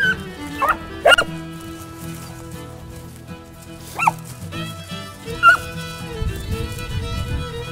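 Hunting beagles giving about five short, high yelps while working the brush for rabbits, over steady background music.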